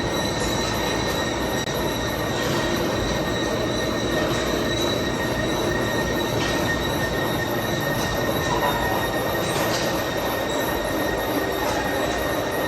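Metal-cutting machine tool running steadily, with a constant high-pitched metallic whine over the machine noise and a few faint clicks.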